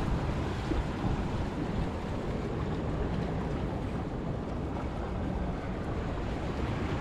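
Steady rushing noise of wind on the microphone and sea waves washing on a rocky shore.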